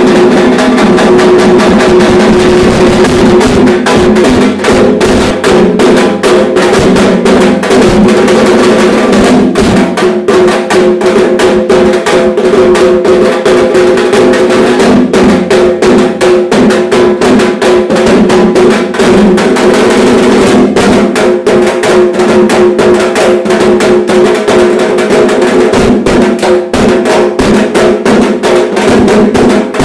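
Dhak, a large two-headed barrel drum slung at the hip, beaten fast with thin sticks in a loud, dense, continuous rhythm, with a steady ringing tone beneath the strokes.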